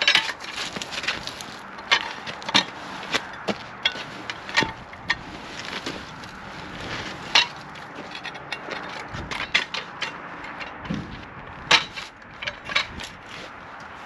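Irregular knocks and clunks of hard objects being handled, several a second at times, with no machine running.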